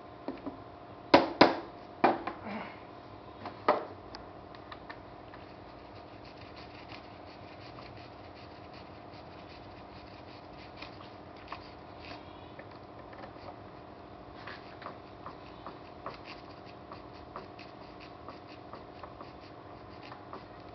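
Hand work on a wooden cabinet: about six sharp knocks on the wood in the first four seconds, then light scraping and small ticks as the work goes on. A steady hum runs underneath.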